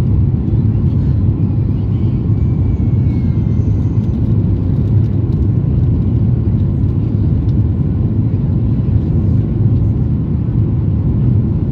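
Boeing 737 MAX 8's CFM LEAP-1B engines and airflow heard from inside the passenger cabin during the climb just after takeoff: a steady, loud low rumble.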